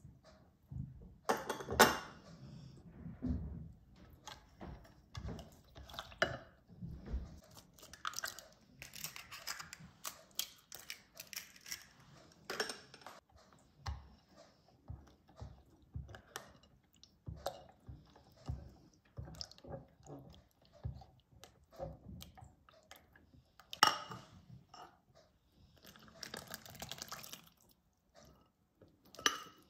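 Bread-dough liquids being mixed by hand: a silicone spatula stirs milk, yeast and eggs in a glass measuring jug, with repeated knocks and clinks against the glass. Near the end the liquid is poured into a steel bowl of flour.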